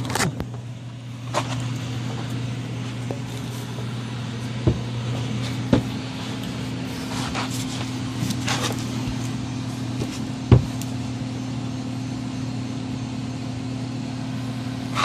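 A steady low hum with a few scattered knocks and bumps as someone climbs up and moves about on a plywood floor, the loudest knock about two-thirds of the way through.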